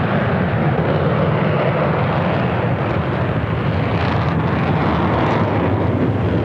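Jet noise from an English Electric Lightning's two Rolls-Royce Avon engines as the fighter climbs steeply straight after takeoff: loud and steady.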